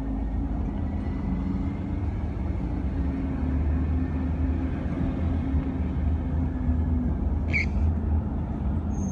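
Diesel engine of a refuse collection truck running with a steady low rumble, and a brief high squeak about seven and a half seconds in.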